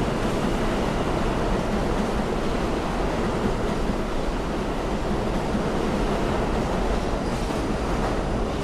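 Budd-built R32 subway cars of an A train leaving an underground station: a steady rumble of wheels on rail as the cars pass the platform.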